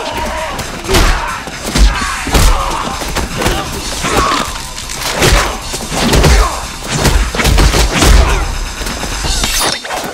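Added fight sound effects: a dozen or more hard punch and kick impacts in quick succession, layered over an action music score with a low steady drone. Near the end comes a hissing, shattering burst as vampires disintegrate into ash.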